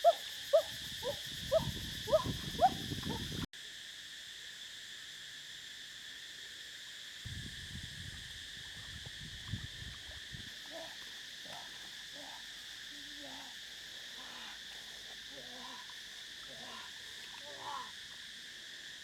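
Wetland chorus of frogs giving short rising calls, two or three a second, over a steady high insect drone. The calls are loud for the first three seconds or so, cut off abruptly, then come back fainter in the second half, with a couple of stretches of low rumbling noise.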